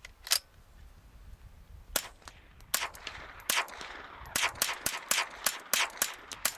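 Suppressed GSG-5 .22LR rifle firing single shots, each a sharp crack: one shot, a pause of about a second and a half, then a string of shots that comes faster and faster, with a ringing tail between them.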